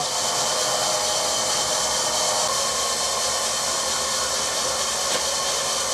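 Vertical milling machine running over a cast-iron casting: a steady, even hiss without any rhythm.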